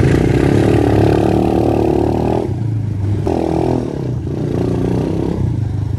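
125cc dirt bike engine running under throttle as the bike is ridden, easing off about two and a half seconds in, picking up again a second later, then running lower.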